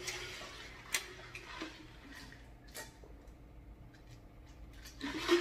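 Faint wet mouth clicks and smacks of chewing, a few sharp ones spread over the first three seconds. Then he drinks from a large plastic jug of juice, with a louder breathy sound near the end.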